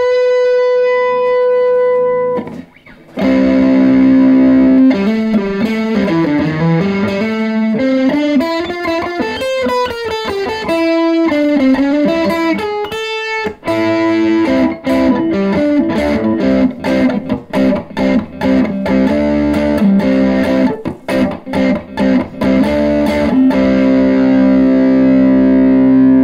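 Line 6 Variax electric guitar played through an amp overdriven by high preamp gain with the master turned low, giving a crunchy distorted lead tone. It opens on a held note, breaks briefly, and then plays a lead line with string bends and vibrato. A run of short choppy notes follows, and it ends on a long sustained note.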